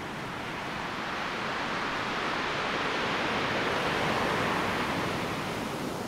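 Storm surf: a steady rush of breaking waves that swells to a peak about four seconds in, then eases off.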